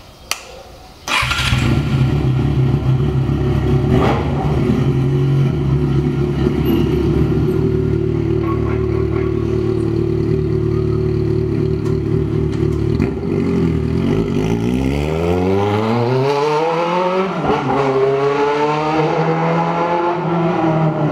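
Yamaha XJ6's 600 cc inline-four motorcycle engine starts about a second in and idles steadily. From about two-thirds of the way through it revs and pulls away, its pitch sweeping up, dropping and rising again.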